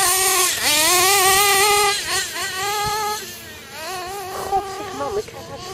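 Nitro RC buggy's .21 (3.5 cc) two-stroke glow engine running on 16% nitro, revving as the throttle is worked, its pitch climbing and falling. Loud for about the first two seconds, then fainter as the buggy moves away, still rising and falling in pitch.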